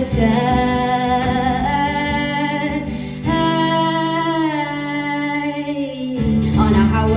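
A woman singing long held notes over guitar accompaniment, the longest note held for about three seconds in the middle.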